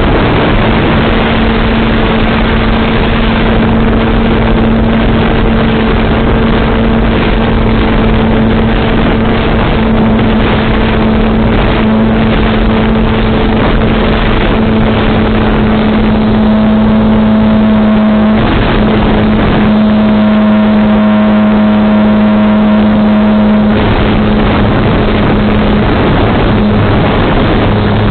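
Volantex Phoenix S's electric motor and propeller running at a steady pitch under loud wind rush. A higher tone joins in for several seconds past the middle.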